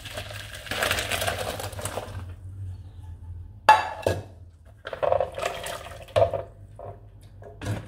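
Boiled okra and its hot cooking water poured from a pan into a plastic colander in a sink, the water rushing through for a second or so. Then one sharp knock of cookware, the loudest sound, and a run of short knocks and rattles as the colander is shaken to drain.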